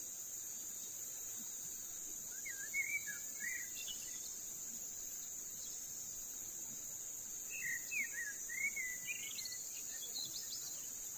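Steady high-pitched drone of forest insects, with a bird calling in two bursts of short gliding whistles, about two and a half seconds in and again around eight seconds in.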